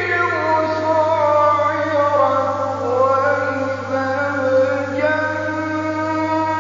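A male reciter chanting the Quran in the melodic tajweed style, holding long notes whose pitch slowly falls through the phrase, with a new phrase beginning about five seconds in. A steady low hum lies beneath the voice.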